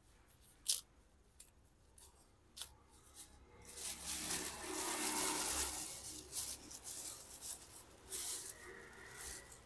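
Raw cassava leaves being torn and crushed by hand, giving sharp crisp snaps, with a longer stretch of plastic bag rustling in the middle as the hand reaches into the bag.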